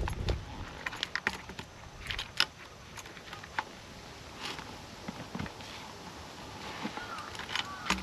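Scattered light clicks and rattles of hose fittings and couplings being handled while a tank's drain outlet is connected to an engine pump.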